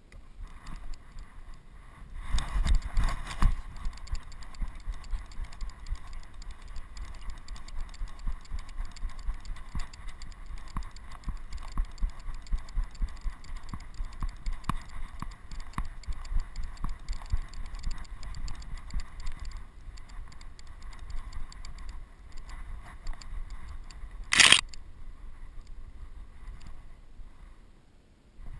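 Camera rig on a dog's back harness jostling as the dog moves over gravel: a steady run of quick, irregular rattling and jingling clicks with low bumps from its strides. Once, near the end, a loud sharp clatter.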